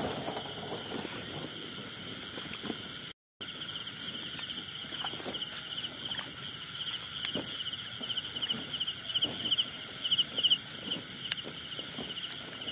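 Night chorus of insects, a steady high trilling with rapid pulsed chirps that grows stronger after the first few seconds, over footsteps and rustling through grass and dry straw.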